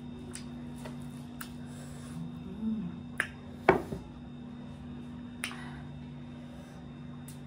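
Close-up eating sounds: sharp wet mouth clicks and smacks while chewing, the loudest a sharp click about halfway through. A steady low hum runs underneath.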